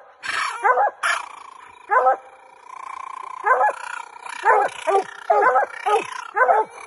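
Coonhounds barking treed: about a dozen short barks with falling pitch, coming irregularly and sometimes overlapping, the sign that they are holding a raccoon up the tree.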